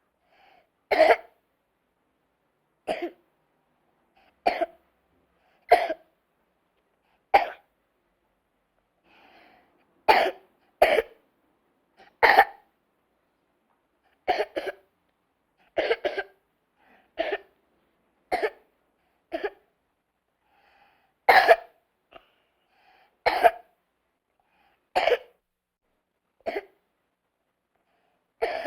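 A person coughing: a series of short single coughs, about one every one to two seconds, with silence between them.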